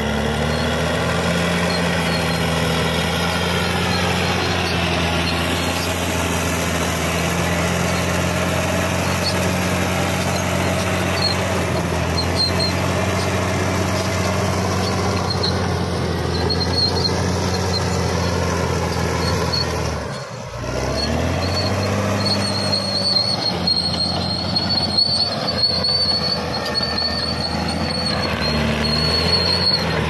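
Caterpillar D6R XL bulldozer's diesel engine running steadily under load while it pushes soil and stumps, with the steel tracks squealing in a thin high tone that comes and goes in the last third. The sound drops out briefly about twenty seconds in and then resumes.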